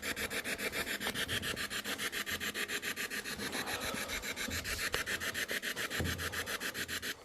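Ghost-hunting spirit box sweeping through radio static: a rapid, even pulsing hiss, about ten pulses a second, that cuts off suddenly near the end.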